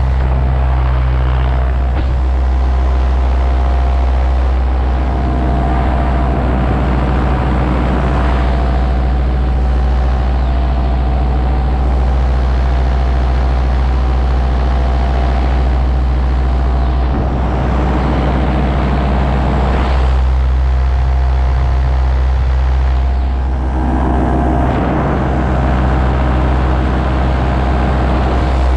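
Paramotor engine and propeller running at steady throttle, heard close up from the pilot's harness, with rushing wind noise on the microphone swelling a few times.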